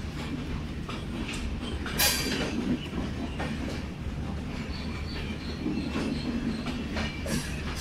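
Indian Railways LHB sleeper coaches rolling slowly past along the platform as the train arrives: a steady low rumble with the clack of wheels over the rail joints, a loud metallic burst about two seconds in, and a faint high wheel squeal in the middle.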